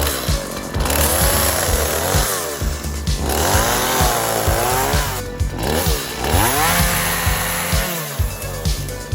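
Two-stroke chainsaw revving up and falling back several times while trimming small branches, its pitch rising and dropping with each cut. Background music with a steady low beat runs underneath.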